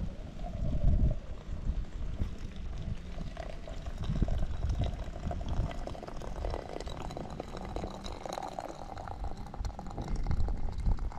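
Liquid being poured into a container, with a faint steady ringing tone through most of the pour.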